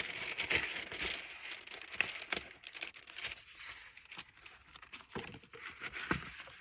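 Paper and card rustling and crinkling as the pages of a thick handmade paper journal and a paper tag are handled, with a few short soft ticks and taps.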